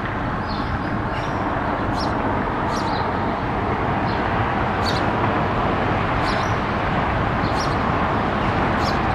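Steady traffic noise, with a male house sparrow giving short, high chirps about once a second over it.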